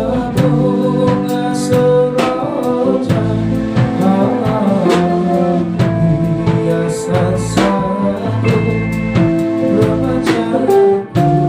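Band music: a drum kit keeping a regular beat under sustained melody notes, as in an instrumental passage of a pop song.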